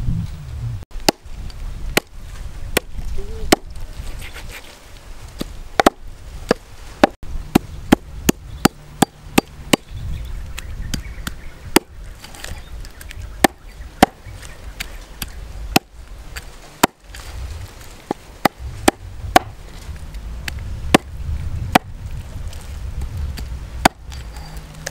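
Cleaver chopping through a snake's body on a round wooden chopping block: dozens of sharp, irregular chops, some in quick runs of two or three.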